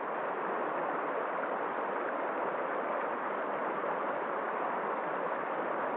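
Steady, even rushing noise with no distinct events, like flowing water or wind.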